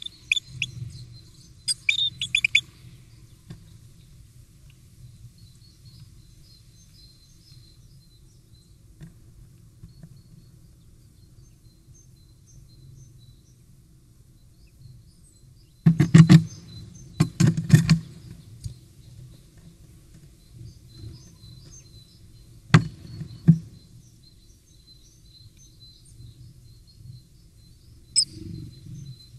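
A great tit at the entrance hole of a wooden nest box: a few high chirps at the start, then clusters of sharp taps and knocks on the wood about halfway through, with a single knock later and another near the end. Faint birdsong runs in the background.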